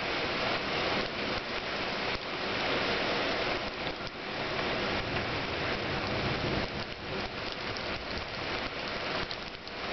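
Heavy rain pelting a shingled roof and trees: a dense, steady hiss with sharper individual hits scattered through it.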